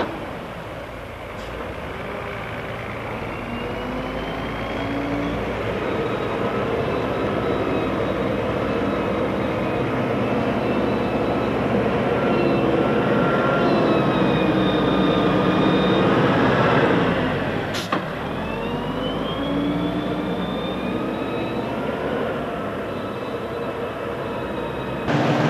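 Wheel loader's diesel engine running under load, its revs rising and falling as the grab works silage. A brief click about 18 seconds in, where the sound dips for a moment.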